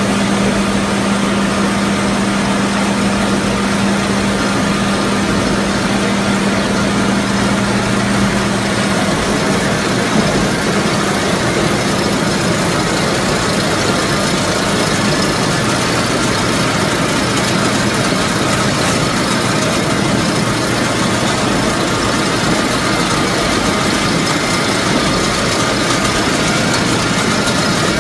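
Truck-mounted tub grinder running at idle: a steady, loud machine drone. A low steady hum within it fades out about ten seconds in.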